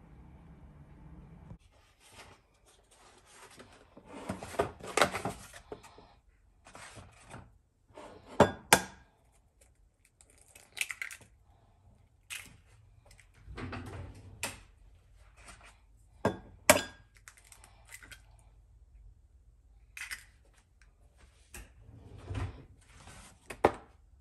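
Eggs being cracked into a small glass cup: pairs of sharp taps a few seconds apart as shells are knocked open, with softer handling of the cardboard egg carton and shells in between.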